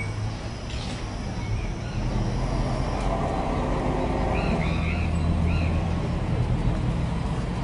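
Street traffic: a vehicle engine running close by, a low steady hum that grows louder in the middle and eases off near the end, with a few short chirps over it.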